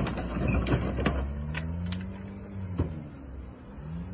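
A car engine revving up and down as a wedged SUV forces its way out past the vehicles pinning it. There are clattering knocks in the first second and a single sharp bang near three seconds in.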